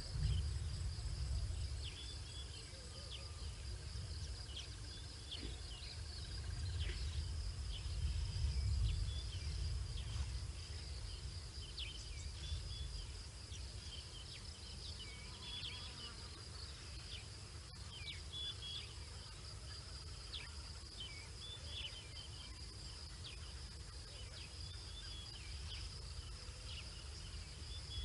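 Insects droning steadily on one high note, with scattered short chirps over it and a low rumble that swells near the start and again about eight to nine seconds in.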